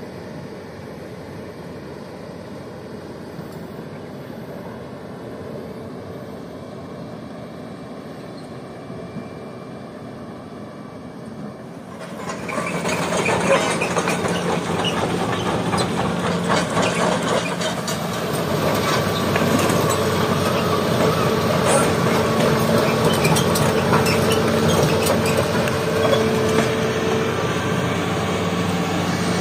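Hitachi crawler excavator's diesel engine running steadily as the machine tracks through a shallow river, at first from a distance. About twelve seconds in it becomes much louder and closer, with dense rattling and clanking from the tracks and steel frame over the engine.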